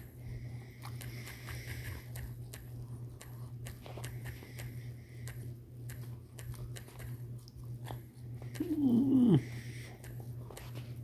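Light irregular taps of typing on a phone's touchscreen keyboard over a steady low hum. About nine seconds in comes one short, loud, wavering cry that drops sharply in pitch at its end.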